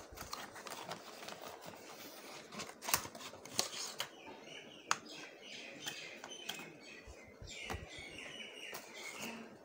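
Cardboard box and plastic packaging rustling and clicking as a folded tripod selfie stick is pulled out of its box by hand, with several sharp snaps. Birds chirp in the background through the second half.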